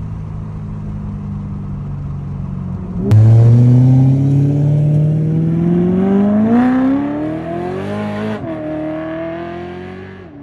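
Straight-piped BMW E92 M3 V8 exhaust. A steady drone for about three seconds, then suddenly much louder as the engine revs up with a rising pitch. About eight seconds in the pitch drops sharply, then climbs again more slowly and fades as the car pulls away.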